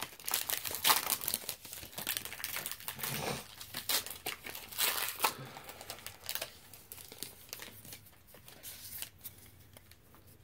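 Foil booster-pack wrapper of a Pokémon Guardians Rising pack crinkling and tearing as it is opened by hand. The rustling is busiest in the first half and dies away about two-thirds of the way through.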